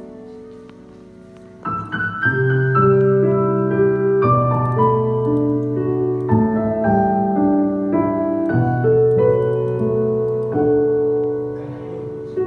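Instrumental passage of a karaoke backing track, led by piano or keyboard with no voice. It starts soft and grows louder from about two seconds in, as a run of separate notes begins.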